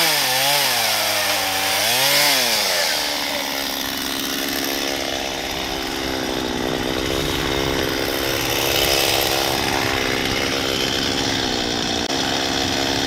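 Chainsaw in an Alaska mill running at high speed under load, ripping lengthwise through a black walnut log. The engine pitch dips twice in the first couple of seconds, then holds steady, and starts to fall right at the end as the saw winds down.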